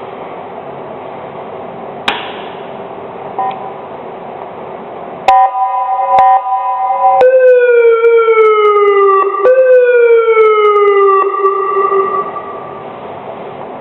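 Police siren: after a few seconds of low hum with a single click, a loud steady electronic tone sounds for about two seconds, then two falling wails of about two seconds each, the second cut off sharply and trailing away.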